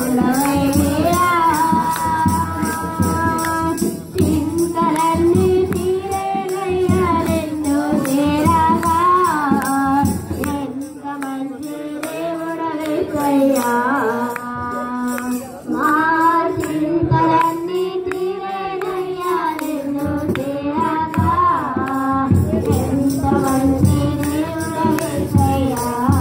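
Christian worship song: a sung melody with long held notes over percussion keeping a steady beat, the percussion falling back for a few seconds midway.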